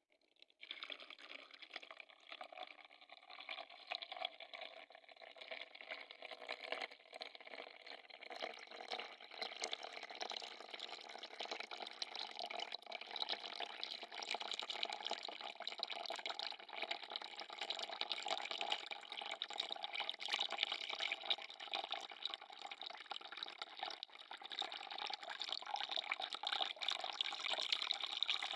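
Water running and splashing steadily, starting about half a second in and growing a little louder over time.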